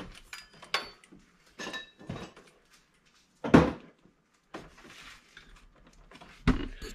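Metal hand tools clinking and clicking against the engine's pulley and bolt as a new pulley is torqued down with a torque wrench, some clinks ringing briefly. One louder clunk comes about three and a half seconds in.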